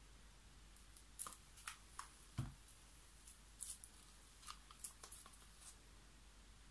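Faint, scattered small clicks and taps as plastic paint cups and a wooden craft stick are handled over a painting table, with one duller knock about two and a half seconds in, like a cup being set down.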